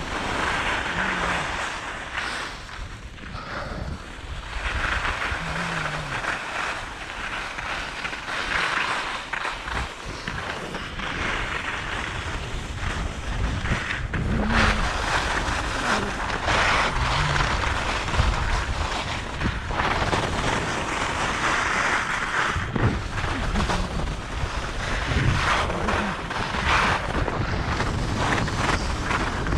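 Skis scraping over groomed snow through a series of turns, the hiss swelling and fading every few seconds, with wind rumbling on the microphone.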